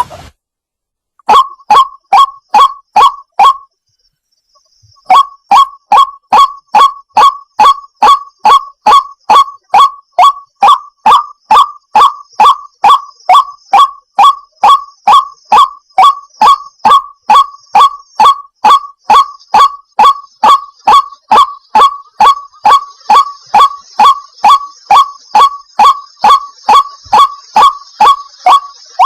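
White-breasted waterhen giving its monotonous 'kook' call: a short burst of five notes, a pause, then an unbroken run of identical notes at about two a second.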